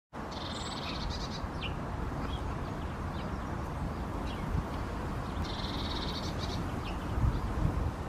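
Small garden songbirds calling: two short, high, rapid trills of about a second each, one near the start and one about five and a half seconds in, with a few brief chirps between. Under them runs a steady low rumble, with a couple of low thumps near the end.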